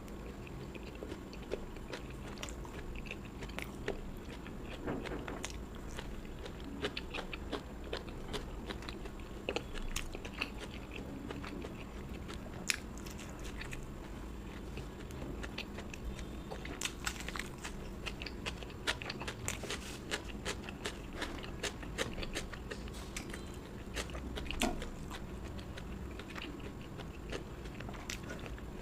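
A person biting and chewing food, with many irregular sharp crunches.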